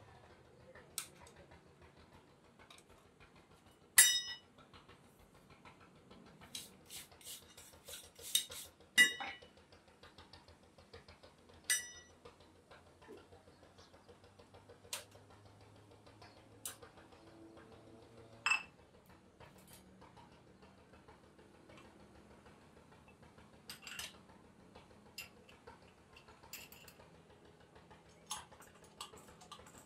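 Steel parts of a truck clutch disc and hand tools clinking and tapping against each other, irregular and ringing. The sharpest clinks come about four and nine seconds in, with a quick run of taps just before the second, and fainter taps later on.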